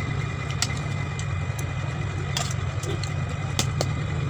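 A steady low motor hum, like an engine idling, with scattered short sharp clicks over it.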